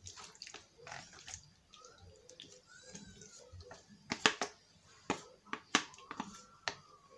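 Cooked elbow macaroni sliding out of a plastic colander into a frying pan of sauce: soft wet slithering and patter, with a few sharp clicks in the second half as the colander is tapped against the pan.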